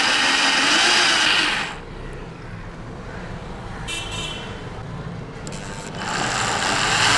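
Hyundai 20 mm SDS-plus rotary hammer, fitted with a chuck and twist bit, drilling slowly into thick steel with a grinding, squealing bite. It stops about two seconds in while oil is dripped onto the bit, with a brief squeak in the pause, and starts drilling again about six seconds in.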